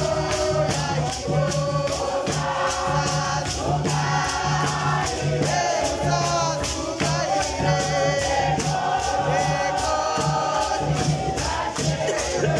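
Church congregation singing a gospel song together, with rhythmic hand clapping and a steady low beat underneath.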